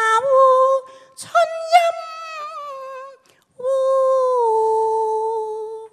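A woman singing a Cantonese opera song (yueqiu) in a high voice with little accompaniment heard: two short phrases, a brief break about three seconds in, then one long held note that steps down in pitch.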